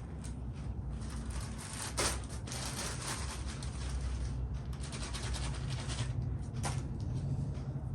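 Balloon being inflated and handled: stretches of hissing air, with a sharp snap about two seconds in and another click near the end, over a steady low hum.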